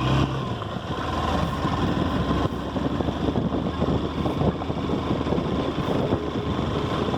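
Motorcycle engine running while riding, a steady low hum overlaid with dense, irregular rough rumble.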